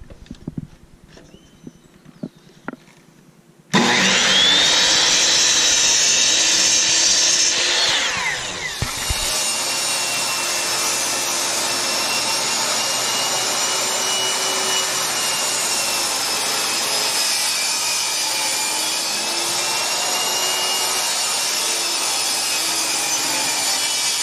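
A few light knocks, then about four seconds in a table saw starts suddenly and runs loud to the end, cutting plywood pieces to length, its blade whine wavering slightly in pitch.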